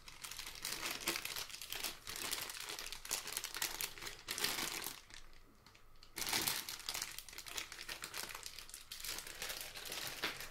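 Thin clear plastic bag crinkling as it is handled and pulled off a laptop power adapter, with a quieter lull about five seconds in before the crinkling starts again.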